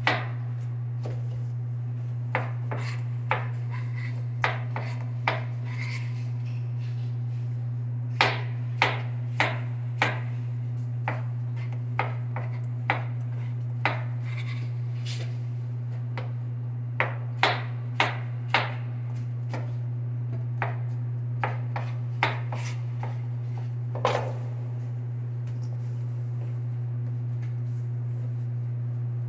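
A kitchen knife chops fruit into chunks on a plastic cutting board: sharp, irregular taps in short runs with pauses between them. A steady low hum runs underneath.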